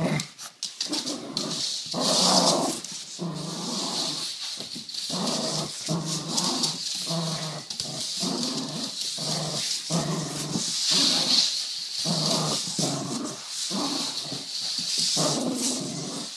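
A small dog growling in a long string of runs, each about a second long with brief breaks between, a growl that sounds like a car engine revving in a drift.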